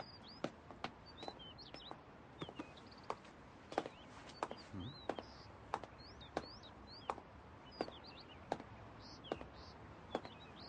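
Small birds chirping, with slow, even footsteps tapping on pavement, about one step every two-thirds of a second.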